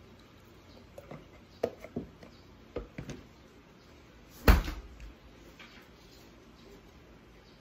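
Household handling noises: a few light knocks and clicks, then one heavy thump about four and a half seconds in, as a milk carton is put away and an ice cream tub is fetched.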